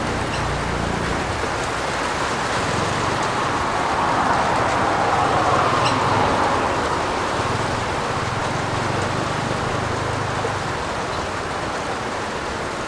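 Steady heavy rain, swelling louder for a few seconds around the middle, with a low rumble underneath.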